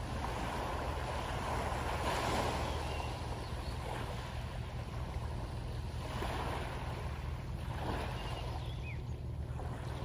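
A boat engine's low steady drone, with small waves washing onto a pebbly beach, the wash swelling about two seconds in and again around six and eight seconds.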